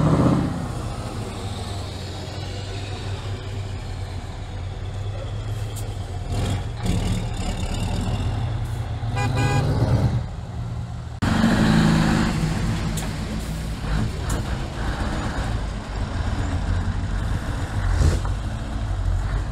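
Heavy diesel lorry engines running as show trucks drive slowly past, with a loud swell as the first one passes close. About nine seconds in a horn sounds briefly. Shortly after, the sound cuts abruptly to another truck passing.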